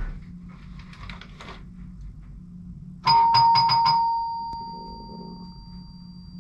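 Doorbell ringing: about three seconds in, a quick run of about five chimes, then a single ringing tone that fades away over a couple of seconds.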